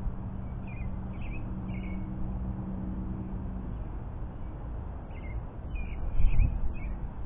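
Birds calling in short chirps, three spaced near the start and a quicker run of them about five to seven seconds in, over a low steady rumble. A low hum fades out about halfway, and a low thump comes about six seconds in.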